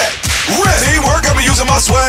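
All-star cheerleading competition music mix: rapped vocals over a hip-hop beat, with deep bass notes that repeatedly slide down in pitch.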